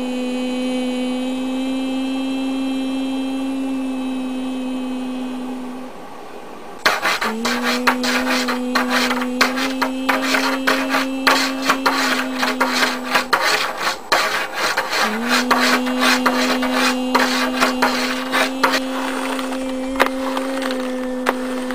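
A person humming one steady low note, held about six seconds at a time and taken up again three times, each start sliding slightly up. From about seven seconds in, a hand rubs, taps and clicks quickly over things, a Dell computer keyboard among them.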